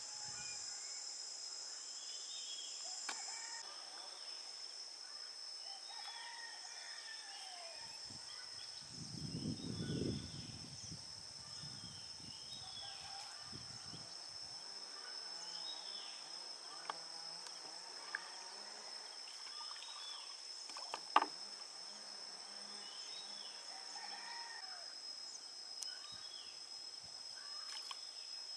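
Steady high-pitched insect drone with scattered bird chirps over it. A brief low rush comes about nine to ten seconds in, and a single sharp click about two-thirds of the way through.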